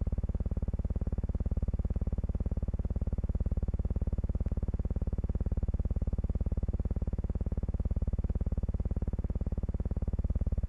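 Steady low hum with a rapid, even pulsing, the background noise of an old optical film soundtrack. It stops abruptly near the end.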